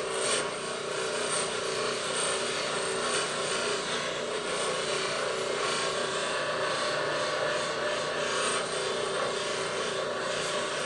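Steel bar held against a spinning abrasive deburring wheel (nylon mesh with bonded abrasive grit): a steady, harsh grinding hiss over the hum of the wheel's motor, rounding off the corners and smoothing the surface. The grinding stops at the very end.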